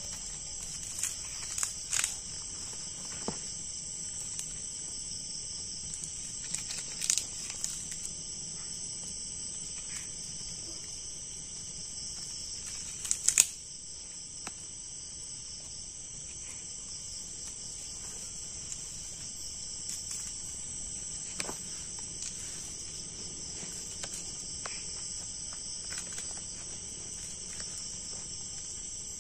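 Steady night chorus of crickets and other insects, with scattered sharp snaps and cracks of dry bamboo and kindling, the loudest about 13 seconds in, as a small campfire is built and lit.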